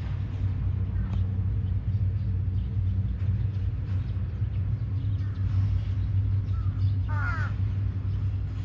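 Crow cawing a few times, the loudest call near the end, each call falling in pitch, over a steady low rumble.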